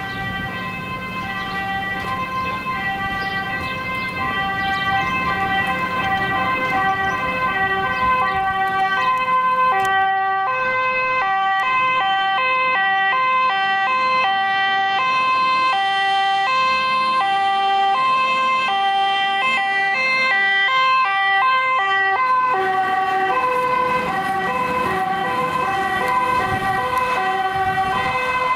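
Two-tone siren of a MAN fire engine, alternating between a high and a low note about once a second and growing louder over the first several seconds as the truck approaches.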